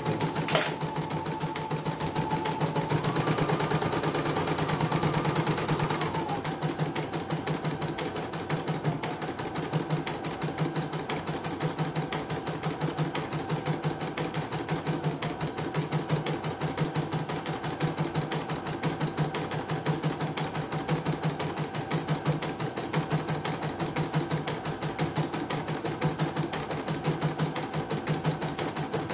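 CNY portable computerized embroidery machine stitching, its needle mechanism clattering in a fast, even rhythm, with a sharp click about half a second in. The setting that was too close has been moved further apart, and the machine no longer makes its 'krek krek' knock.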